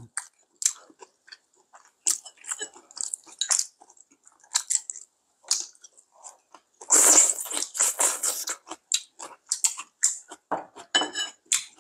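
Two people eating at close range: chewing and crunching food, including freshly ripened sweet-potato-stem kimchi, with short irregular crackles and a louder crunchy stretch about seven seconds in.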